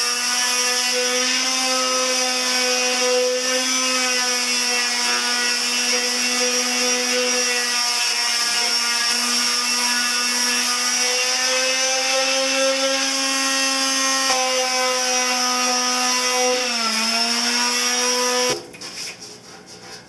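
Black+Decker electric sheet sander running steadily, sanding paint on a steel motorcycle gas tank with 120-grit paper. Its pitch dips briefly near the end, then it switches off.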